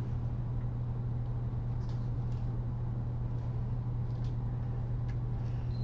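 Steady low background hum, with a few faint ticks over it.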